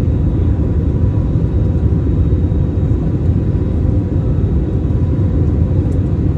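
Steady low rumble of airliner cabin noise aboard an Airbus A320neo, the even roar of engines and airflow with no change in level.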